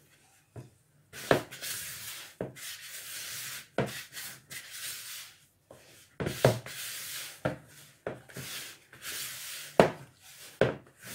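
Spatula stirring shortcrust dough in a plastic bowl: repeated scraping strokes through the dough, with several sharp knocks of the spatula against the bowl.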